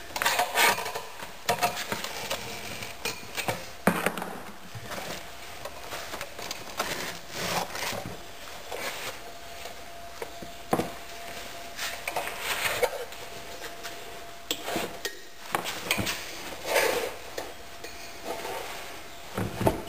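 Screwdrivers used as tire irons prying a stubborn rear tire bead off a dirt bike wheel rim: irregular metal clinks, knocks and scrapes with rubbing.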